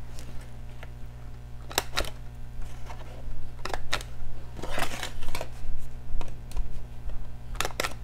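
Handheld corner-rounder punch (a We R Memory Keepers Corner Chomper with a 1/4-inch round) clipping the corners of cardstock: a few sharp clicks, mostly in close pairs, with the card rustling as it is repositioned.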